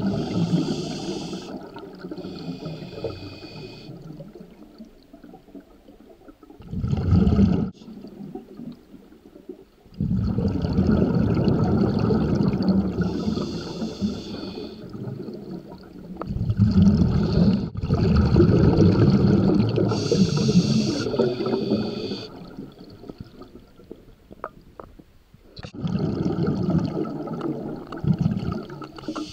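Scuba diver breathing through a regulator underwater. Short hissing inhalations alternate with long bubbling, gurgling exhalations, in a cycle that repeats every several seconds.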